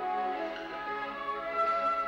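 Classical ballet music: an orchestra playing a melody of held notes that move step by step from pitch to pitch.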